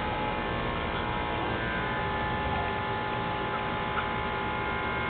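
A steady hum, a drone of several held tones that does not change, with one faint tick about four seconds in.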